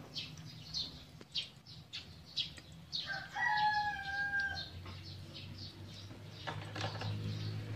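A rooster crows once near the middle, a single held call of about a second and a half, over a scatter of short high ticks.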